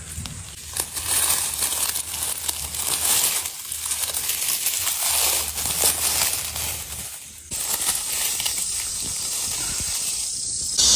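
Dry fallen leaves and twigs crackling and rustling as a hand digs and picks mushrooms out of the forest-floor litter. The sound breaks off briefly about seven and a half seconds in, then picks up as a steadier hiss.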